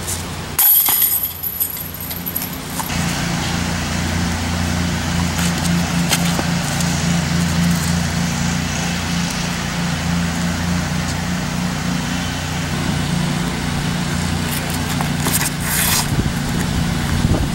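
A disc strikes the metal chains of a disc golf basket, a brief loud jangle about half a second in. From about three seconds in, a steady low engine hum, like a nearby motor vehicle, runs under the rest.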